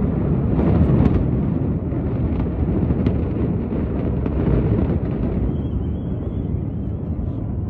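Deep, sustained rumble of the Supertech twin towers' concrete high-rises collapsing after their implosion blast, slowly easing, with a few faint cracks in the first seconds.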